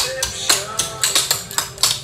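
Clogging taps striking a concrete floor in a quick, uneven run of sharp clicks, several a second, over a song playing.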